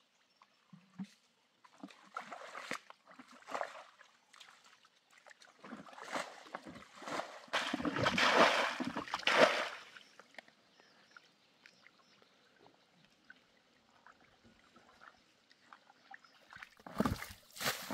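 Muddy water and wet mud sloshing and splashing as hands and a plastic basin scoop through a shallow pond. The splashing is loudest about six to ten seconds in, goes quiet for a while, then picks up again near the end.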